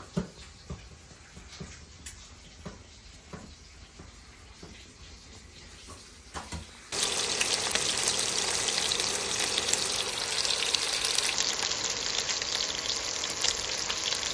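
A few faint clicks and knocks, then about halfway through a loud, steady rushing noise that starts abruptly and holds.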